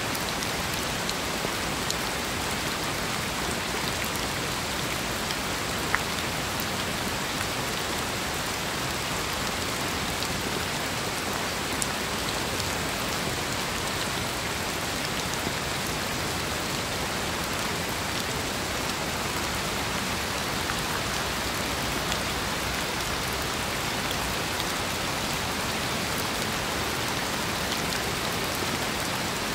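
Steady rain: a constant even hiss with now and then a sharper single drop hit, the clearest about six seconds in.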